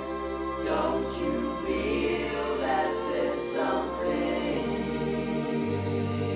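Soft-rock band song with layered vocal harmonies sung over sustained chords. A low bass note comes in near the end.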